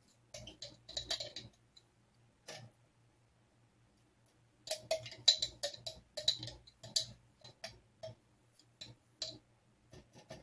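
Light, irregular clicks and taps of a spoon against a container while pesto is spooned out: a few about a second in, then a busier run of clicks from about halfway through until near the end.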